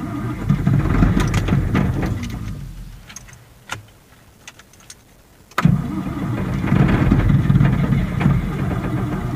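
Diesel tractor engine being started on ether, in two attempts. It turns over and fires, then dies away within about three seconds. About five and a half seconds in, a second attempt starts abruptly. This is a hard-starting engine that will not keep running on its own.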